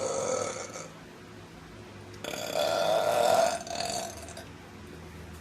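A woman belching twice: a short burp fading in the first second, then a longer, louder one about two seconds in.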